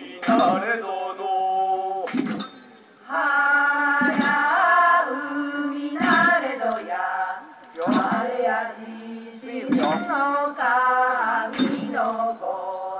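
Group singing of a traditional Japanese rice-planting song: held, wavering sung notes with a sharp percussive strike about every two seconds keeping the beat.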